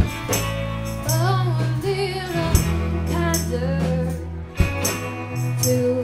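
A live band playing a song: a woman singing the lead melody over electric guitars, bass and drums, with a tambourine shaken and struck along.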